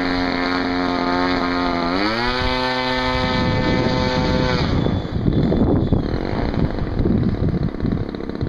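Electric ducted-fan model jet whining steadily; about two seconds in the whine rises in pitch as the fan speeds up, then it stops about four and a half seconds in. After that, wind rumbles on the microphone.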